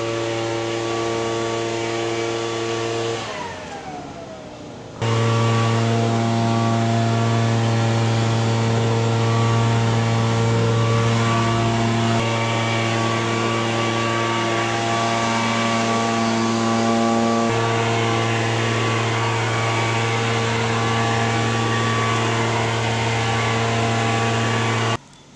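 Small engine running at a constant high speed over a rushing of air; about three seconds in it falls in pitch as it slows, then about two seconds later it is back at full speed and runs steadily until it cuts off suddenly near the end.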